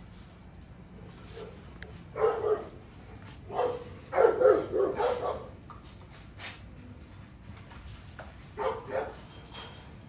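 American bully dogs barking during rough play between an adult and a puppy: single barks at first, a longer run of barks around the middle that is the loudest part, and two more barks near the end.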